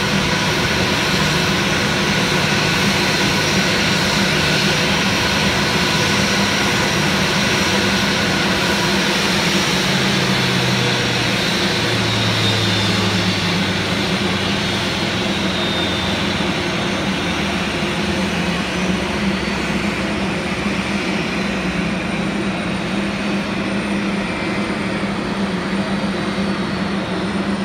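Airbus A320-family airliner's jet engines running at taxi power as it rolls slowly past: a loud, steady whine and rush that eases slightly about halfway through.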